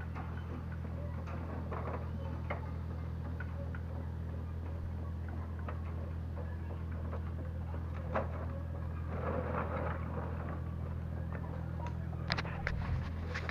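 Excavator's diesel engine running steadily, with scattered knocks and a short clatter about nine seconds in and again near the end.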